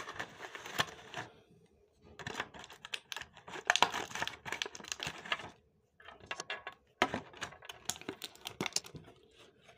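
Hands handling earbud packaging and the power-bank charging case: a quick run of small clicks, taps and crinkles, in three stretches with short pauses between them.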